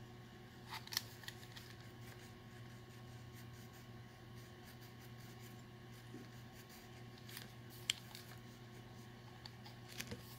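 Wax crayon rubbing softly on a colouring-book page, with a few light clicks, over a steady low room hum.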